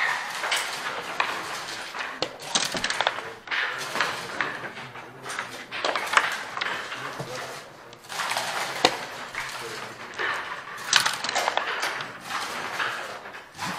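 Backgammon checkers clacking onto the board and dice clattering, in short bursts of hard clicks and rattles throughout, a few single clacks standing out louder.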